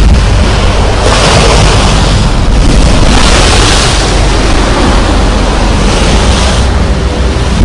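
Sea waves breaking against a concrete seawall, the surf surging louder about a second in and again around three seconds, with heavy wind buffeting on the microphone.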